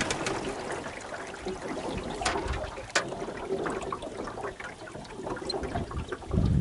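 Water splashing and trickling along the hull of a coasting jon boat, the outboard having just cut out. Two sharp clicks, about two and three seconds in.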